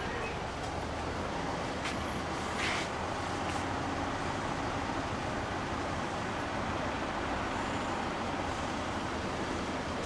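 Honda Motocompo with a 106cc engine and Pentagon silencer idling steadily through its exhaust. A brief hiss sounds just under three seconds in.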